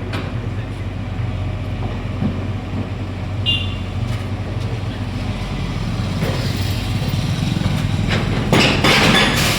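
Hitachi Zaxis hydraulic excavator's diesel engine running steadily under load, with a brief high squeal about three and a half seconds in and a burst of crunching, crashing demolition debris near the end.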